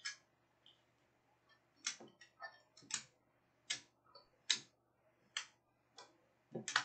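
A series of about ten sharp clicks or taps, unevenly spaced, roughly one every half second to a second.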